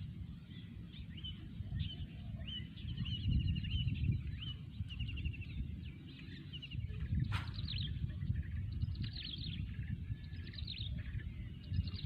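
Birds chirping over and over in short repeated trills, over a steady low rumble, with one sharp click about seven seconds in.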